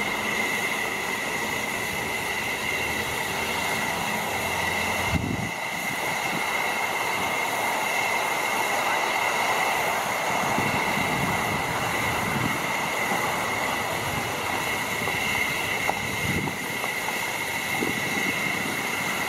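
Zillertal U class narrow-gauge steam locomotive standing at the platform, its steam hissing steadily with a constant high whistling note in it.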